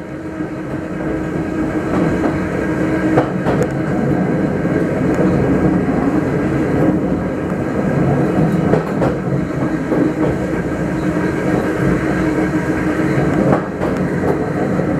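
Electric railcar of the metre-gauge Grütschalp–Mürren line running along the track, with a steady hum and rumble of the wheels. A few sharp clicks come from the rail joints, one about three seconds in and one near the end.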